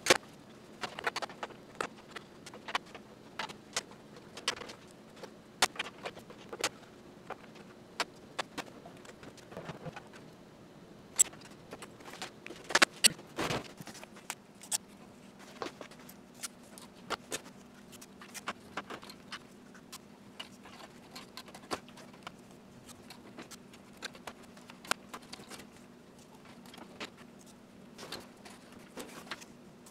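Irregular light clicks, taps and small metallic rattles of hands handling parts and wiring inside a vintage Universal gas range, with a cluster of louder knocks about halfway through. A faint steady hum runs underneath.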